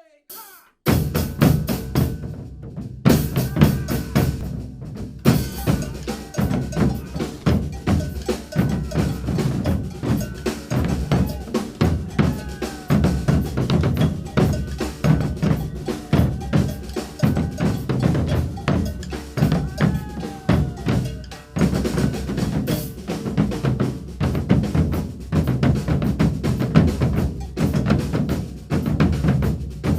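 Percussion ensemble playing a coco virado, a northeastern Brazilian rhythm, on drums with a bell part. It comes in about a second in, with two short breaks in the first few seconds, then a dense, driving groove.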